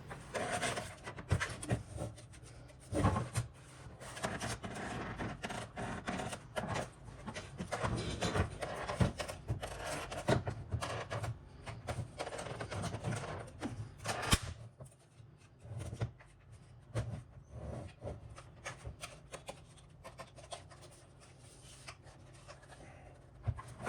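Handling noise from a PlayStation 4 being reassembled: scattered clicks, taps and rubbing of its plastic and metal parts, busier in the first half and sparser later.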